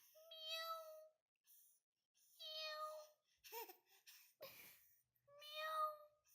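A cat meowing three times, each meow under a second and steady in pitch, with two short vocal noises from a baby in between.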